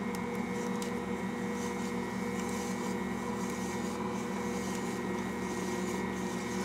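Ankarsrum stand mixer's motor running at a steady speed, an even hum, mixing the brioche dough ingredients at the start of kneading.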